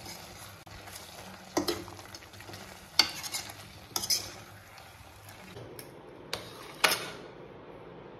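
A spoon stirring a thick quail masala in a frying pan, the masala sizzling, with the spoon knocking and scraping against the pan four or five times. The sizzle stops abruptly about seven seconds in.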